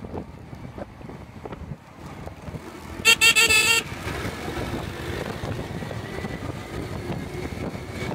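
A vehicle horn honks once, a single wavering tone lasting just under a second about three seconds in, over the steady rumble of road traffic heard from a moving vehicle.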